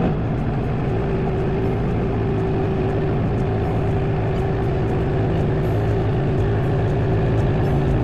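Woodland Mills HM126 portable bandsaw mill running at full throttle: the engine gives a steady loud drone and the spinning band blade a steady whine, as the sawhead advances into a southern yellow pine log.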